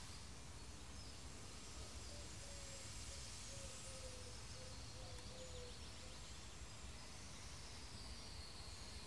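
Faint garden ambience: a steady low rumble and hiss with faint distant bird calls, and a faint drawn-out wavering tone through the middle.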